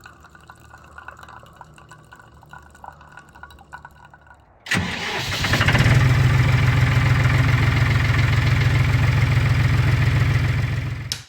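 An engine starts suddenly about four and a half seconds in, builds up over about a second, then runs loud and steady before cutting off abruptly near the end. Before it starts there are only faint low sounds with a few small clicks.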